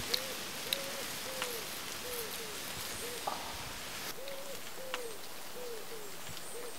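A pigeon cooing: a string of short, rounded, low coos, about two a second, over a steady outdoor hiss.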